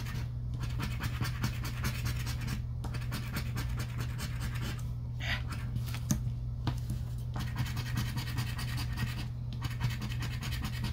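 Scratch-off lottery ticket being scratched with a round scratcher tool: fast rasping strokes across the card's coating, with a few brief pauses.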